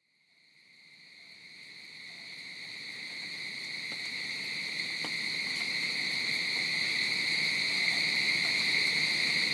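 A steady, high-pitched insect chorus fading in from silence over the first few seconds, then holding an even drone.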